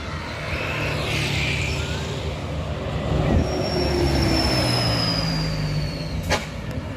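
A large vehicle running with a steady low rumble. A high squeal falls slowly in pitch past the middle, and a sharp click comes near the end.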